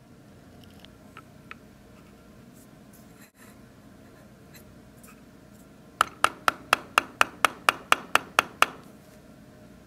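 An even run of about a dozen sharp clicks, roughly four a second, starting about six seconds in and each ringing briefly. A few faint ticks come earlier over low room noise.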